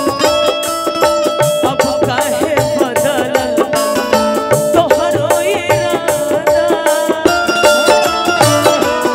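Bhojpuri folk stage band music: held melodic instrument lines over a steady, even drum beat.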